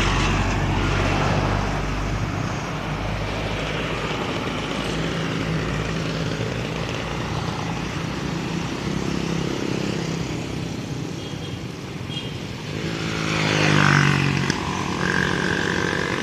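A steady rushing noise with a motor vehicle's engine in it; about thirteen seconds in an engine swells and rises in pitch as it passes close by.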